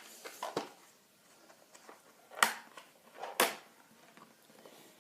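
A few sharp clicks and knocks of small objects being handled; the two loudest come about two and a half and three and a half seconds in.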